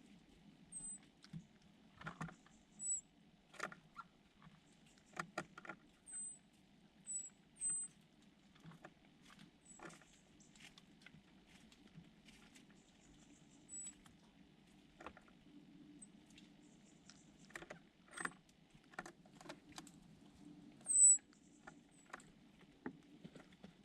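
Small songbirds giving short, thin, very high calls now and then, the loudest about 21 seconds in, with scattered light taps and clicks, over a steady low hum.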